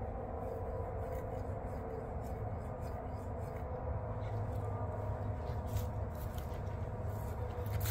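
Footsteps scuff through dry leaves and grass from about six seconds in, over a steady low hum.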